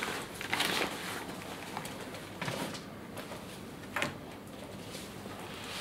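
Handling noise: a swim cap's plastic packet and the backpack's fabric rustling as the packet is pushed into the mesh outer pocket. A few short rustles, the sharpest about four seconds in.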